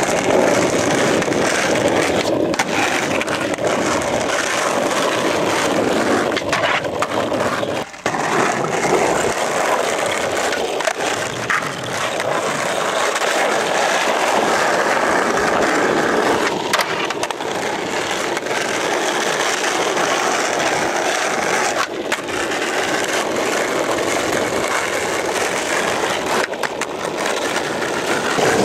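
Skateboard wheels rolling on rough asphalt, a steady grinding rumble, with a few sharp knocks and clacks of the board along the way.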